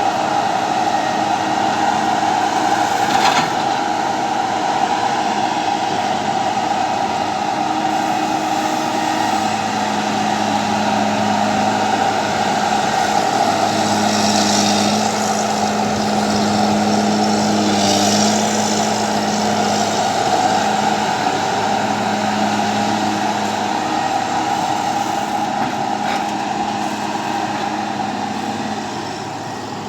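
Engine of a heavy forestry or earthmoving machine running steadily, its pitch rising and falling a little under changing load. There is a sharp knock about three seconds in and two short hisses about halfway through.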